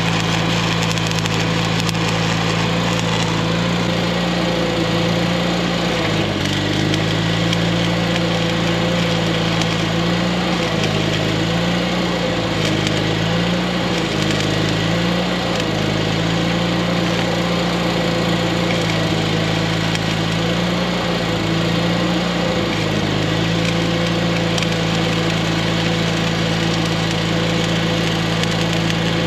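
A small engine runs steadily over a constant crackling hiss. Its pitch wavers up and down in several spells, about a fifth of the way in and again around two-thirds through, then settles.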